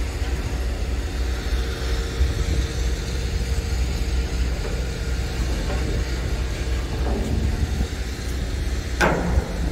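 An engine running with a steady low rumble; a short sharp sound cuts in about nine seconds in.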